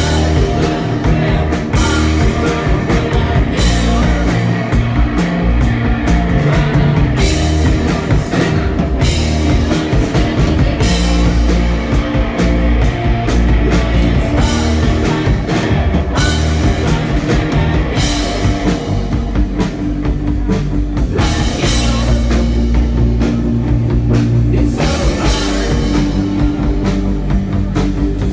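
A live rock band playing loudly, with electric guitars, bass guitar and a drum kit.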